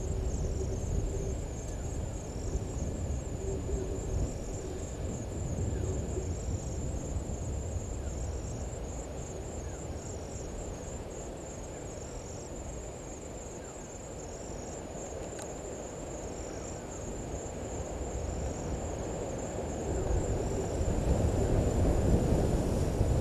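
Bush ambience at dusk: insects chirring steadily at a high pitch, and a short high note repeating about every two seconds. A low hooting call comes twice in the first six seconds. Underneath is a low rumble that swells near the end.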